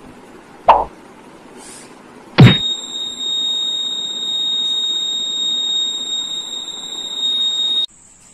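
Battery-powered buzzer of a homemade thread-triggered alarm sounding a steady, high-pitched tone for about five seconds. It starts with a loud knock as it is set off and cuts off suddenly near the end. A single sharp knock comes about two seconds before the buzzer.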